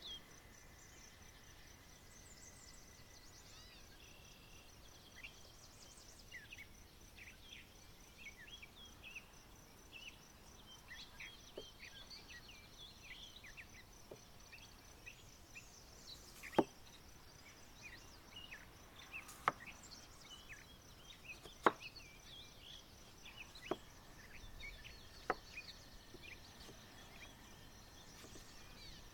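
Birds chirping and a faint, steady insect trill. In the second half come several sharp knocks about two seconds apart, a knife cutting down onto a wooden board.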